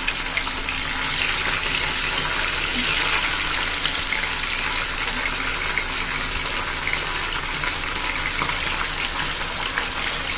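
Small parshe fish shallow-frying in hot mustard oil in a pan: a steady sizzle with scattered small crackles and pops.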